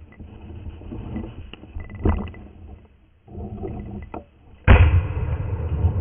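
A single shotgun shot about three-quarters of the way in, the loudest sound, preceded by rustling and gun-handling noise as the gun is swung up through thick brush. The shooter doesn't think he hit anything.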